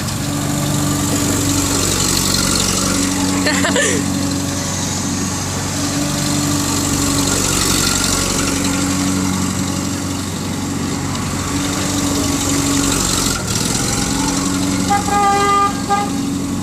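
Bulldozer's diesel engine running steadily, its low drone swelling and easing every couple of seconds; the driver says it isn't accelerating well. A brief pitched tone sounds about a second before the end.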